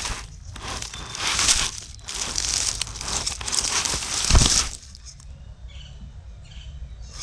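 Irregular crunching and crackling of dirt, gravel and dry debris under an RC crawler's tires as it crawls off-road. There is a sharp knock about four seconds in, after which it goes quieter.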